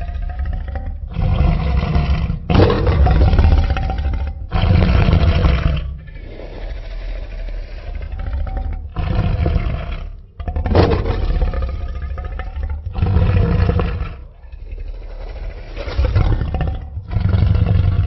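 Designed dinosaur roars for Carcharodontosaurus: a run of loud, deep roars and growls, each lasting one to two seconds, with short pauses and quieter rumbling between them.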